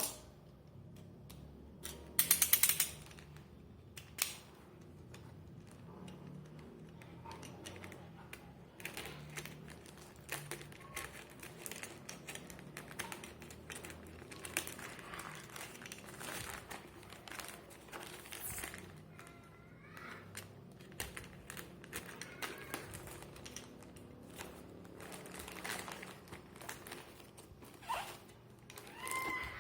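Packaging being handled and opened: crinkling and rustling with scattered clicks and knocks, loudest in a burst of crinkling about two seconds in.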